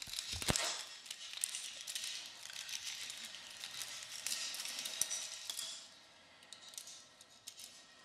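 Close-miked paintbrush strokes on a window: a dry, scratchy bristle scraping dotted with small clicks, opening with a couple of sharp knocks and easing off after about six seconds.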